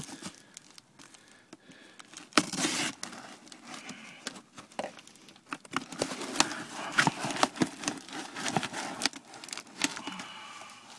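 Hands opening a cardboard shipping box: irregular tearing, rustling and crinkling of cardboard and packing material, with small clicks and taps. There is a louder burst of tearing about two and a half seconds in.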